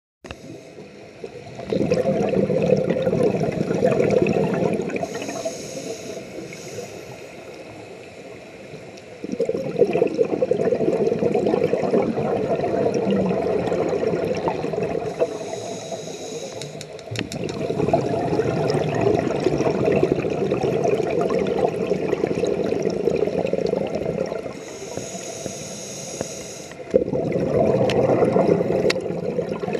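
Scuba diver's breathing through a regulator, heard underwater: four long bouts of bubbling exhaust as breath is let out, with quieter spells between them that carry a thin hiss of inhalation.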